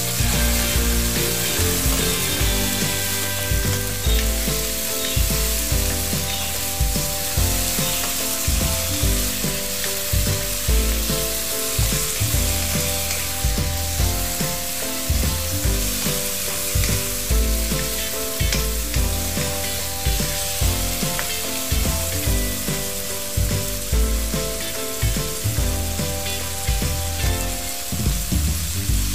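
Onions and tomatoes sizzling as they sauté in oil in a wok, stirred with a wooden spatula, with background music.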